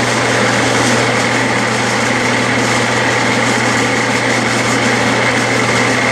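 Clausing metal lathe running under power feed, its carriage carrying a carbide threading insert along the thread on a final pass with no added depth, taking off little or nothing. A steady motor-and-gear hum with a high steady whine.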